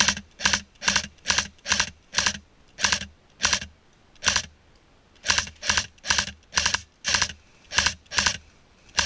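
Airsoft AKS-74U rifle firing single shots on semi-auto, about nineteen sharp cracks at two to three a second, with a pause of about a second near the middle.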